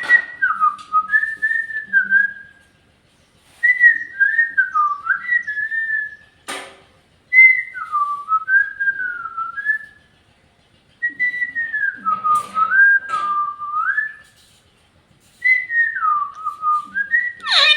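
Pet parrot whistling a short wavering tune over and over, five phrases of gliding notes with brief pauses between, plus a sharp click partway through.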